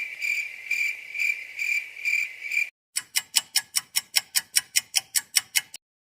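Cricket chirping: a steady high trill that pulses about twice a second. After a short break, a quick run of about fourteen sharp ticks, roughly five a second.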